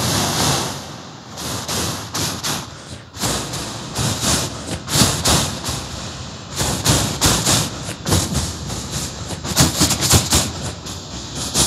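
A man's voice imitating a train crossing a bridge: a breathy hiss, then a long run of quick clattering beats like wheels over rail joints, coming faster and closer together later on.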